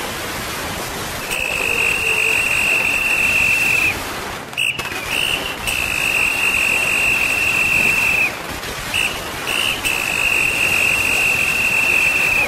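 Three long, steady, high whistle-like tones, each about two and a half seconds, with short chirps between them, over a steady rushing noise.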